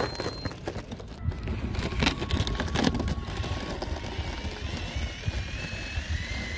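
Outdoor wind rumbling on the microphone, with clothing rustle and sharp handling clicks, busiest a couple of seconds in. From a little past the middle, a faint whine wavers up and down in pitch.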